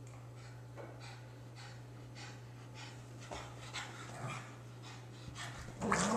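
Dog panting, a run of faint quick breaths about twice a second, with a louder, low dog vocal sound near the end as the Akita paws at the pug.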